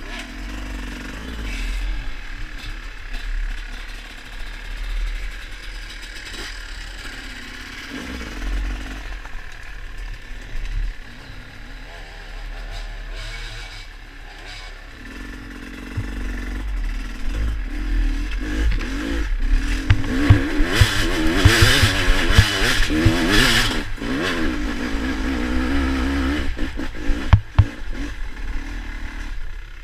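Off-road motorcycle engine running and changing pitch as it revs, growing louder over the second half, over a steady low rumble.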